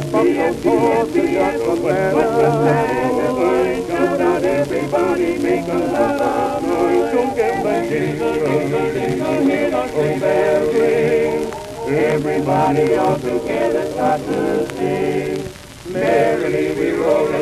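Music played from an acoustic-era 78 rpm shellac disc: a male vocal quartet with orchestra accompaniment. There is a brief dip in loudness near the end.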